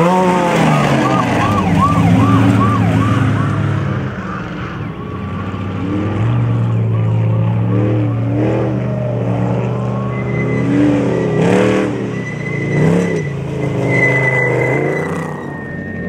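Off-road desert race truck and buggy engines running hard, the revs rising and falling quickly and repeatedly as the throttle works over rough dirt. A thin high steady whine joins in over the second half.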